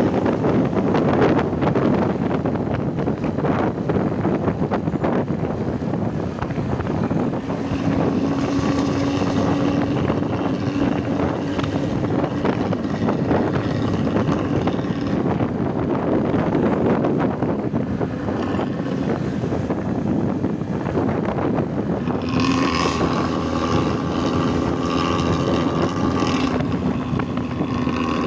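Intercity bus engine running through a 'ngorok' exhaust, a snoring, growling note, steady throughout. A steady pitched tone with overtones rises above it over the last few seconds.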